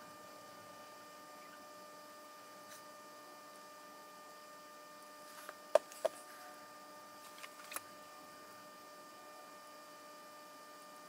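Faint steady electrical hum with a few sharp metal clicks and taps from handling a starter's field-coil frame during soldering. The two loudest clicks come close together about halfway through, and two lighter ones follow shortly after.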